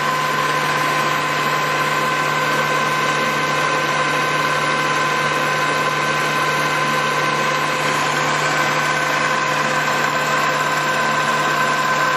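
Polamco TUG-40 gap lathe running under power, a steady mechanical hum with a constant whine from its headstock drive.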